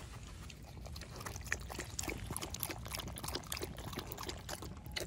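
A dog lapping and splashing at shallow creek water, a quick irregular patter of small wet splashes over the trickle of the creek.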